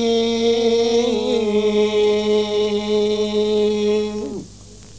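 Quran recitation in the Moroccan Filali style: a single voice holds one long drawn-out melodic note, stepping slightly lower about a second in. The note falls away and stops about four seconds in.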